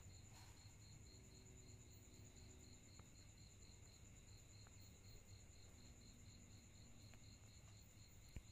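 Faint crickets trilling steadily at two pitches over a low hum, with a few faint ticks.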